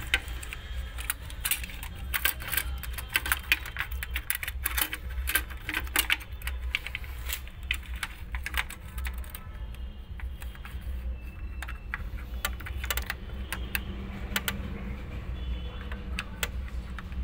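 A printed circuit board being worked by hand onto a sheet-metal mounting rail: irregular small clicks and rattles of plastic and metal, thickest in the first half and sparser later, over a steady low hum.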